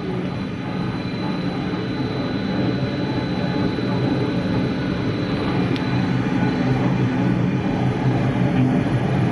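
Cable-making production machinery running steadily: a continuous mechanical drone with a faint steady high whine over it.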